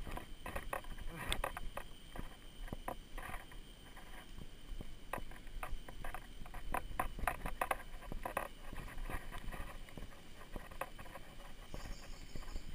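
Mountain unicycle riding over a rough dirt trail: irregular clicks, knocks and rattles as the wheel and pedals go over bumps, with a faint steady high tone behind.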